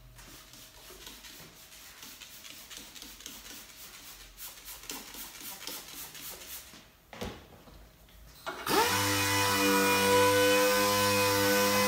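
Quiet handling and rustling, then, near the end, a hose-fed random orbital sander starts suddenly, rising at once to a loud, steady whine of several tones. It is wet sanding car paint with a Trizact 3000 disc on a Hookit pad.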